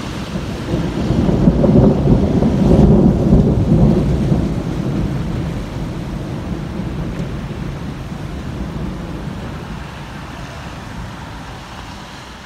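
Rolling thunder: one long, low rumble that builds to its loudest about two to four seconds in, then fades away slowly.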